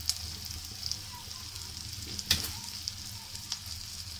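Chopped onion and tomato masala sizzling in hot oil in a kadhai, with a wooden spoon stirring and scraping it. A few short knocks of the spoon against the pan, the sharpest a little past halfway.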